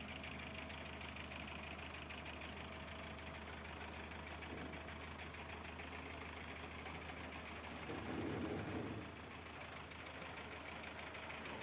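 An engine running steadily at idle, with a louder swell for about a second roughly eight seconds in.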